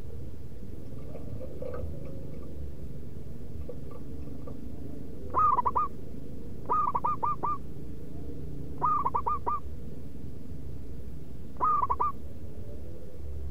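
Zebra dove (perkutut) cooing: four short phrases of quick, bouncing notes a second or two apart, starting about five seconds in, over a steady low background rumble.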